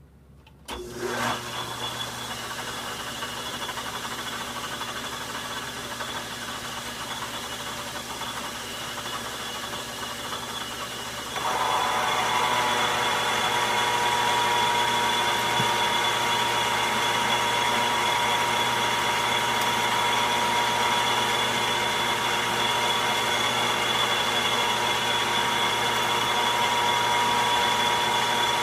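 Logan metal lathe starting up about a second in and running steadily. About eleven seconds in the sound steps up louder, with a steady high tone, as the tool begins cutting the steel nut blank.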